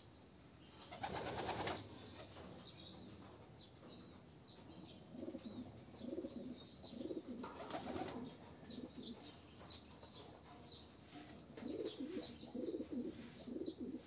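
Domestic pigeons cooing in a series of low repeated calls, with a burst of wing flapping about a second in and another about halfway through.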